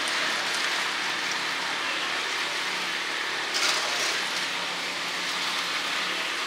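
Hot oil in a deep fryer sizzling steadily, with a brief sharper rustle about three and a half seconds in.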